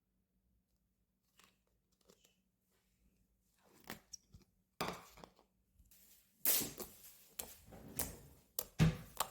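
Purple-black slime being squished and stretched by hand: sticky clicks and crackles, sparse and faint at first, then louder and denser from about halfway.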